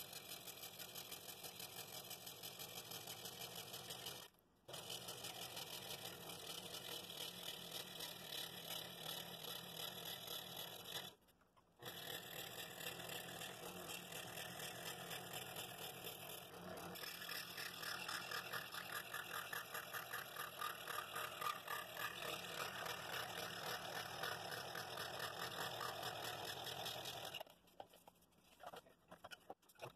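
Scroll saw running with a spiral blade, cutting through the wall of a cherry wood bowl in a steady fast chatter. The sound cuts out briefly twice and breaks up and stops near the end.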